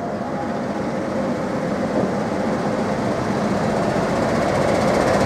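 A Class 90 electric locomotive (90005) running in along the platform with its train. The locomotive runs steadily and the wheels rumble on the rails, growing louder as it approaches.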